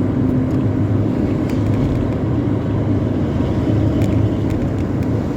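Intercity bus's modified 'knalpot ngorok' (snoring) exhaust giving a steady deep rumble, mixed with road noise from the moving vehicle.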